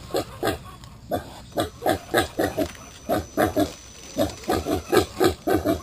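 A pig grunting in a rapid series of short, downward-sweeping grunts, several a second, with a brief pause about a second in.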